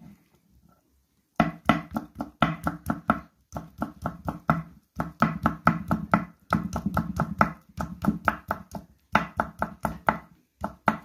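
A kitchen knife rapidly chopping sheets of noodle dough into thin strips on a wooden cutting board: quick knocks of the blade on the board, about six a second. They start about a second and a half in and come in runs of one to two seconds with short pauses between.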